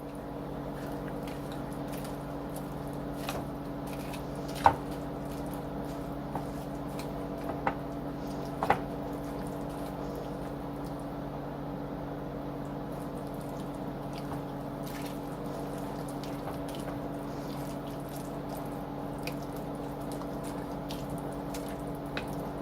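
A thick, wet mixture of cream of chicken soup, chicken, vegetables and cheese being stirred in a bowl: soft squishing with small clicks, and two sharper knocks of the utensil against the bowl about five and nine seconds in, over a steady low hum.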